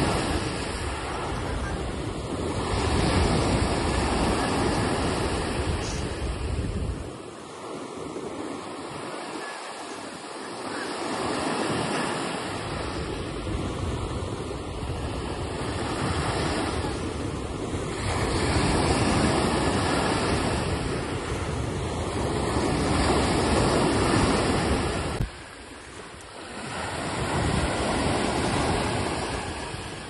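Sea waves washing onto a shore, the surf swelling and ebbing every few seconds, with wind buffeting the microphone. The sound drops suddenly about three-quarters of the way through, then builds again.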